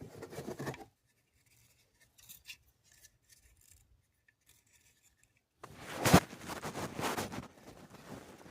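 Handling noise from unpacking vacuum accessories: a few light plastic clicks, then a loud stretch of plastic packaging rustling and crinkling a little past halfway.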